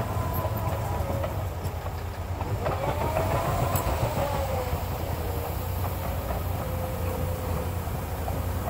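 Caterpillar 953D track loader's diesel engine running as the machine manoeuvres, with a whine that rises and then falls about three seconds in.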